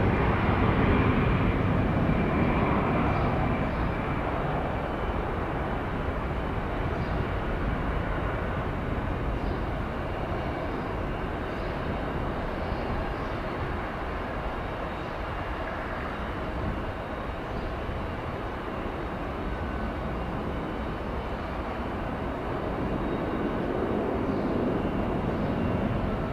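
Jet engines of an Airbus A319-100 on its takeoff and climb-out, a steady jet roar that is loudest at first, fades through the middle and builds somewhat again near the end.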